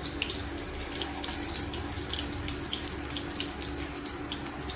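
Pieces of semolina and gram-flour batter shallow-frying in hot oil in a pan: a steady sizzle dotted with small crackles and pops.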